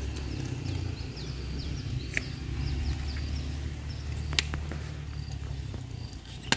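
Repeated short high chirps from small animals over a low steady rumble, with three sharp snaps about two seconds apart as plant stems are picked by hand.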